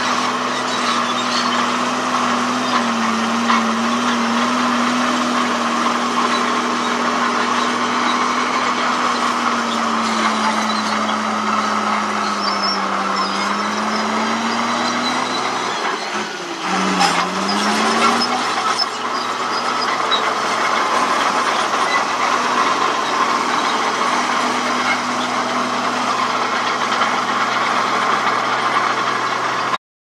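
Komatsu D31P crawler bulldozer's diesel engine running under load as it pushes rocky soil. The note sags slowly toward the middle, then drops sharply and picks back up, with a brief sharp noise there, before running steady again.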